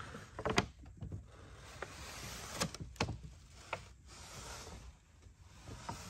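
Scattered light knocks and clicks, with soft rubbing between them, as a Speedtech top-mount turbo exhaust manifold is handled and turned over.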